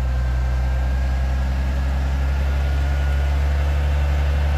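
4x4 engine running steadily at low revs while rock crawling, a deep even hum with a faint steady whine above it.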